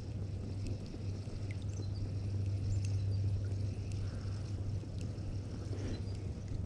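Faint water sounds against a kayak hull and a few light clicks from a spinning reel being cranked on the retrieve, over a steady low hum.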